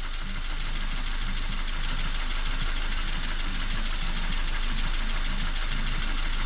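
Toyota 5E-FHE four-cylinder petrol engine running at idle with a rapid, even metallic knock ringing over it: the engine knock the owner is showing.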